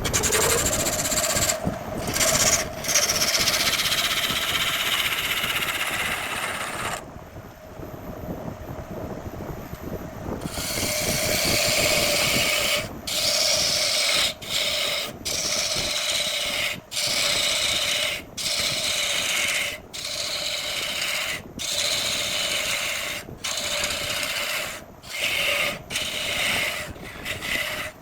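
Wood lathe spinning a jackfruit-wood blank while a turning tool cuts it: a steady scraping hiss over the lathe's hum. The cutting drops away for about three seconds a quarter of the way in while the lathe keeps running, and in the second half it breaks off briefly about once a second.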